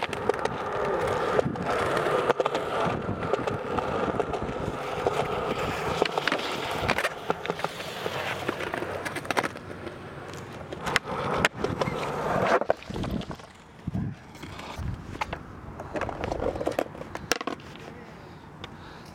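Skateboard wheels rolling over pavement, with sharp clacks of the board at intervals. The rolling grows quieter over the last several seconds.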